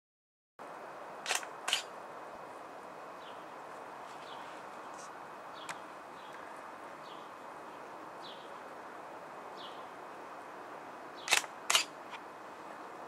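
Shutter of a second, hand-held stills camera firing: a sharp double click about a second in and another near the end, over steady outdoor hiss.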